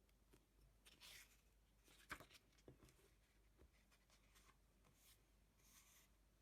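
Near silence: room tone with a few faint rustles and light clicks of small handling, the sharpest click about two seconds in.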